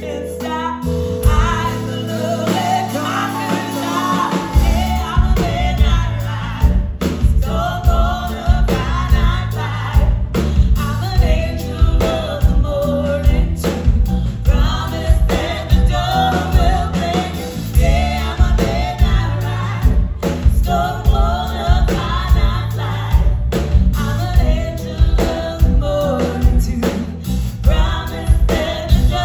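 Live band playing a song: a female lead vocal with a second woman singing harmony, over electric bass and a steady beat.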